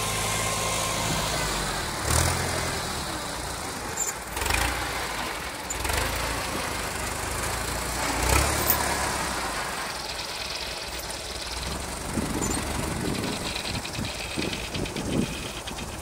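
Small tracked rice combine harvester's engine running steadily, with a few brief louder jolts about 2, 4.5, 6 and 8 seconds in as the machine moves over the field.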